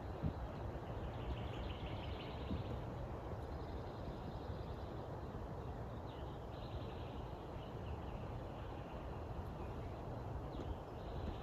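Swamp woodland ambience: a steady low rumble with faint, high trilling calls that come and go a few times, and a soft bump just after the start.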